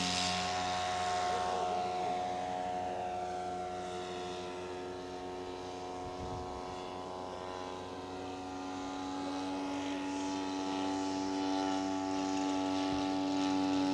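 Radio-control scale model airplane engine running at steady pitch with its propeller as it flies past. It fades after the start and grows louder again toward the end.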